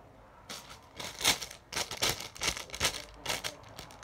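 Squishy packaging rustling and crinkling as it is handled, in a run of short bursts about two a second.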